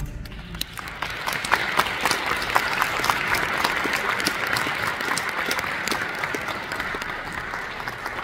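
Audience applauding an orchestra's performance, dense clapping that eases off slightly near the end.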